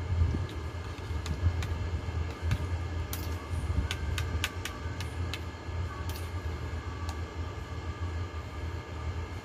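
Steady low hum of a running air conditioner, with light clinks of a metal spoon against a bowl, several close together about four seconds in.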